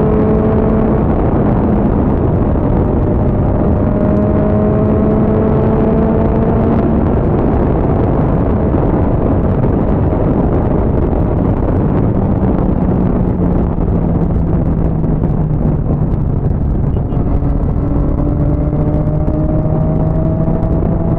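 Motorcycle engine running at highway cruising speed under heavy wind and road rush. Its pitch creeps slowly up, dips a little about twelve seconds in, then climbs again.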